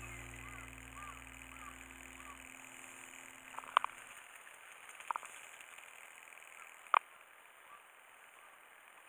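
Background music fading out over steady insect chirring, with three sharp clicks, the last one near the end the loudest.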